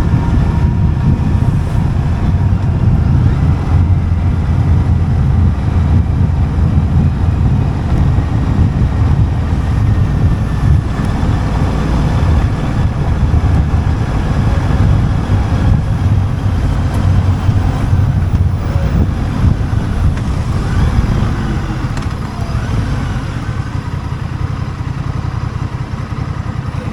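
Honda Rebel 1100 motorcycle's parallel-twin engine running steadily under way, mixed with road and wind noise. It gets a little quieter over the last few seconds.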